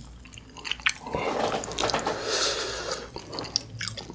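Close-miked eating sounds: wet squishing and clicks as a piece of sauce-glazed fried chicken is pressed into a bowl of thick creamy sauce, along with chewing.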